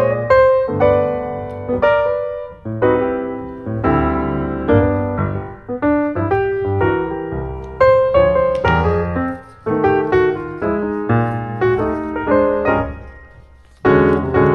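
Solo piano music: chords under a melody, each note struck and left to ring. Near the end the sound dies away for about a second before a loud new chord comes in.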